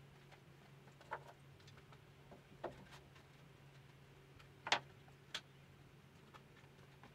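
Scattered light knocks and taps of wooden 1x3 boards being handled, about five over several seconds, the loudest about two-thirds through, over a steady low hum.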